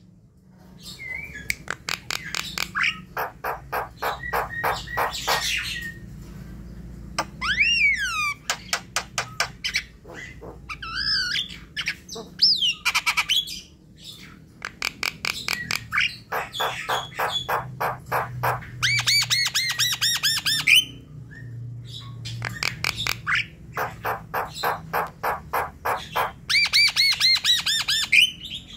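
Javan myna singing in full voice: long runs of quick, harsh repeated notes, about five a second, broken by a few sliding whistles.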